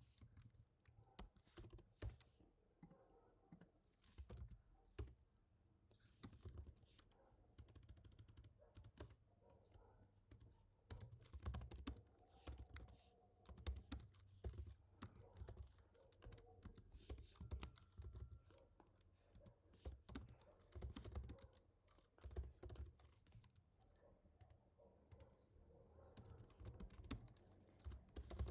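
Typing on a computer keyboard: irregular runs of keystrokes with short pauses, over a faint low hum.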